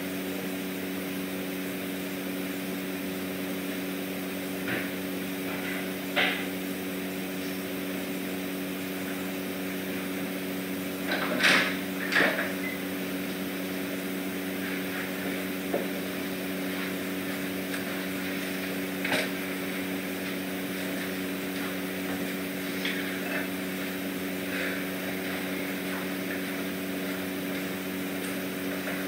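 Steady mechanical room hum with a few low tones, broken by a handful of short knocks and clunks; the loudest pair comes about eleven to twelve seconds in.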